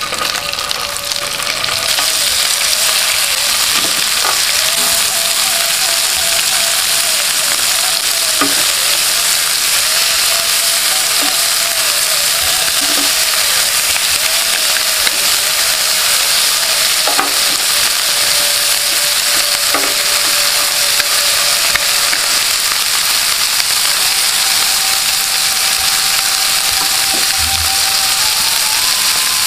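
Prawns sizzling in hot oil on a ribbed nonstick grill pan, building to a steady, loud sizzle within the first two seconds. Metal tongs click against the pan a few times as the prawns are placed and turned.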